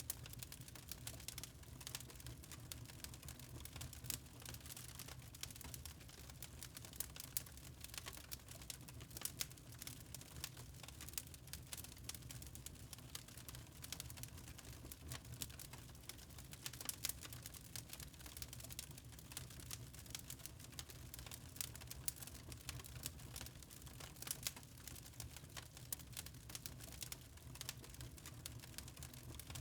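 Fire crackling in a fireplace: a dense, irregular run of small pops and snaps over a steady low rumble.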